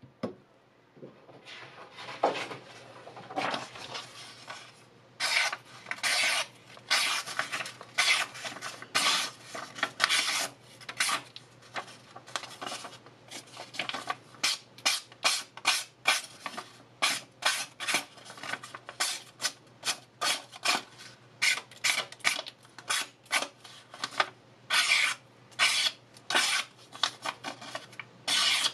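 A hand-forged 5Cr15 stainless cleaver slicing through a sheet of paper in quick strokes, each cut a short, crisp papery swish, about two a second, starting about two seconds in.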